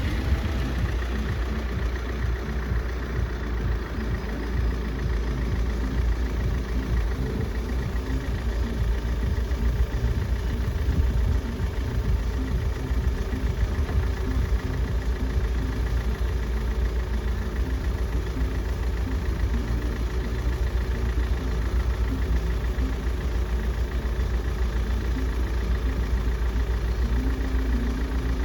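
Engine idling steadily with an even low rumble.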